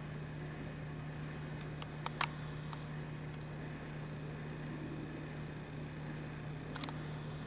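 Steady low hum with a faint hiss of room noise, broken by a few small, sharp clicks about two seconds in and once more near the end.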